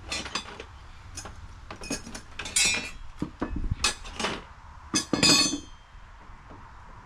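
Hand tools knocking and clinking against nails and deck lumber: an irregular series of sharp metallic hits, about ten in all, the loudest about two and a half and five seconds in.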